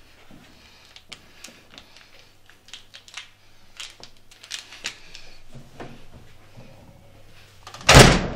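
Scattered light clicks and taps, like a small object being handled, then one loud thud near the end.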